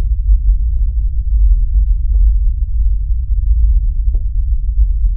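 A loud, steady, deep rumbling bass drone, with a few brief faint blips over it.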